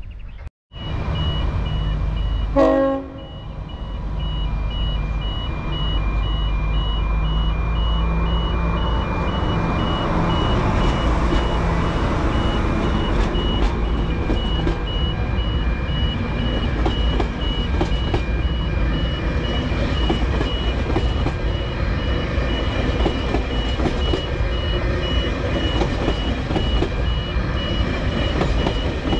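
Rail vehicle with its engine running steadily, with occasional clanks, over a continuous pulsing electronic warning beep. A short horn toot sounds about three seconds in.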